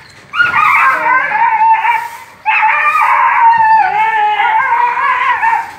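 A stray dog caught in a dog-catcher's noose pole yelping and howling in distress, loud and continuous, in two long bouts with a short break about two and a half seconds in.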